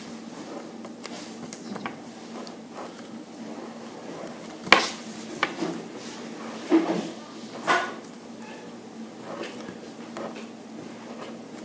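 Faint scratching of a felt-tip pen on paper over a steady low hum, broken by four sharp knocks and clinks between about five and eight seconds in, the first the loudest.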